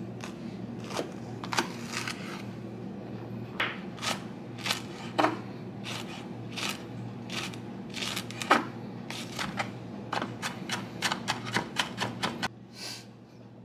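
Chef's knife chopping jalapeño peppers on a wooden cutting board: sharp knocks of the blade on the board at an uneven pace, closing into a quick run of chops near the end.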